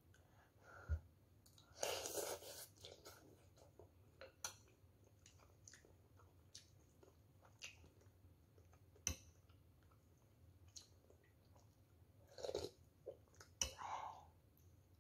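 Close-up sounds of a person eating noodles: quiet chewing with scattered sharp clicks, and a louder slurp about two seconds in, with more near the end.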